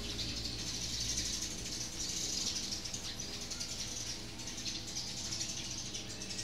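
Steady, high-pitched chirring made of rapid fine pulses, strongest in the middle, from animals calling in the surroundings.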